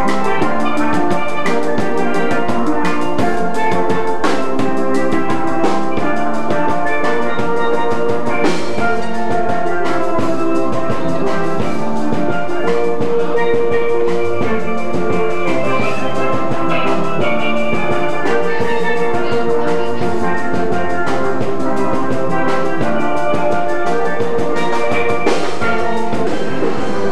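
Instrumental music: a melody of ringing pitched notes over a drum beat.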